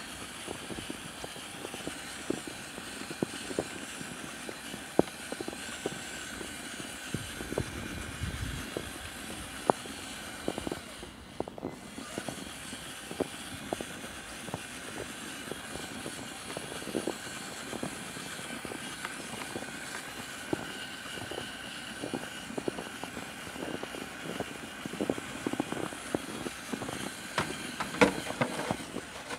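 Electric motor of an HPI Wheely King radio-controlled truck running as it drives and plows through snow: a thin, steady whine over a noisy bed, with scattered short crunches and clicks throughout.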